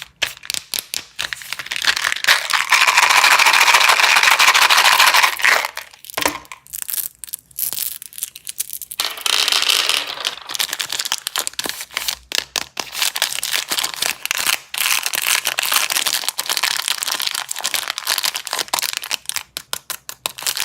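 Plastic candy wrappers crinkling and crackling as they are handled, with a steadier, louder stretch of crinkling from about two to five seconds in.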